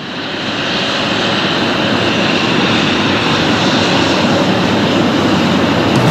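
Turbofan engines of an Embraer 190 jetliner (GE CF34-10E) running as it taxis, a steady jet engine noise that fades up over the first second and then holds level.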